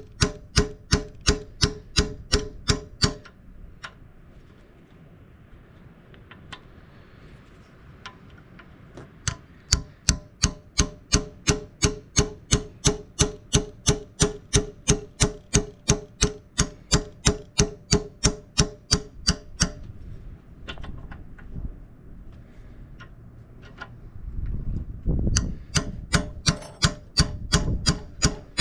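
Hammer tapping a retaining pin into an excavator bucket tooth: steady metal-on-metal strikes about three a second, each with a short ring, in three runs with pauses of several seconds between them.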